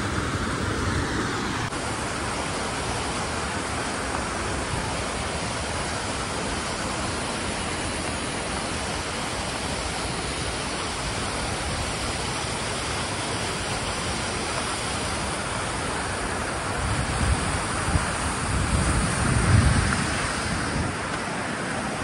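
Steady rushing of a mountain stream cascading over rocks. A few low rumbles of wind on the microphone come near the end.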